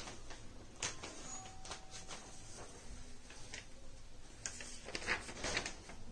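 Quiet room noise with a few scattered short clicks and knocks, the loudest about five seconds in.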